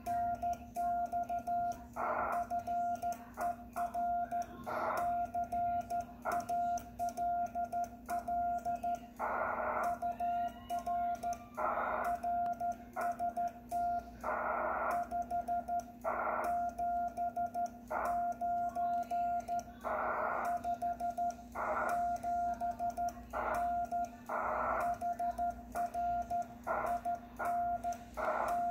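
Morse code sent by side-swiping a 1963 Vibroplex Lightning Deluxe key: a steady-pitched sidetone beeps in dots and dashes, with sharp mechanical clicks from the key's lever against its contacts. A steady low hum sits underneath.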